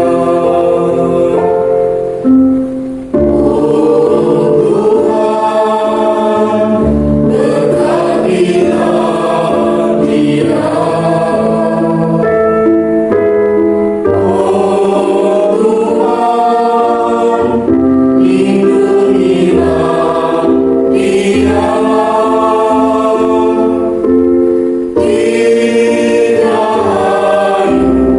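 Children's school choir singing, in sung phrases of a few seconds each.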